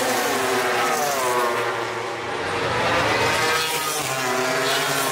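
MotoGP racing motorcycles going by at speed on the main straight. Several engine notes overlap, each rising and falling in pitch as a bike passes.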